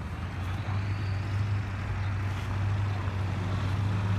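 A motor vehicle's engine running, a steady low hum that grows slightly louder about a second in.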